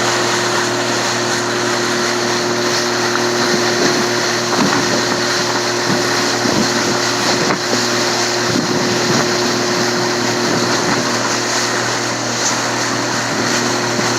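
Motorboat engine running at a steady pitch, with no change in speed.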